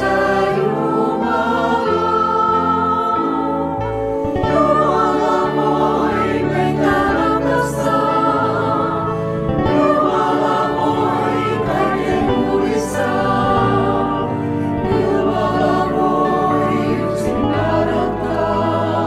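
Mixed choir of men's and women's voices singing a Finnish hymn, accompanied by piano and acoustic guitar.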